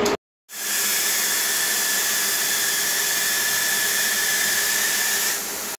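Compressed-air paint spray gun hissing steadily as it sprays paint, with a thin steady whine in the hiss; the hiss drops a little near the end.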